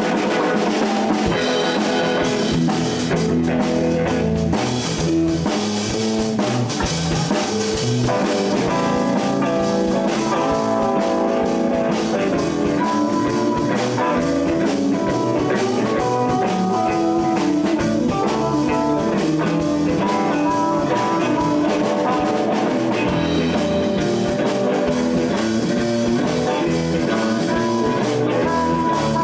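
Blues band playing: guitar lines over a steady drum kit beat and bass.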